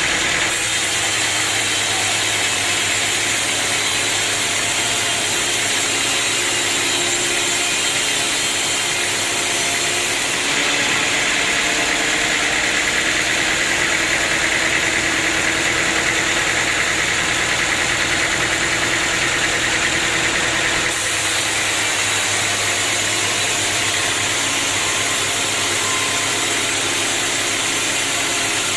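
Sawmill machinery running steadily, a constant engine-like drone, with its tone shifting abruptly twice along the way.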